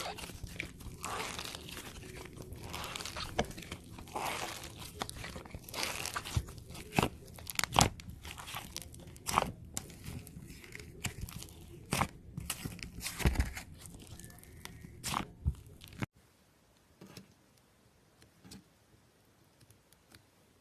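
Slime being pressed and squished by hand, making dense crunchy crackling with sharp pops and clicks. About three quarters of the way through it cuts off suddenly to near quiet, with only a few faint clicks.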